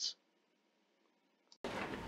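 Near silence: a word's tail, then a dead-quiet gap, then steady faint room tone with a low hum from about three-quarters of the way in.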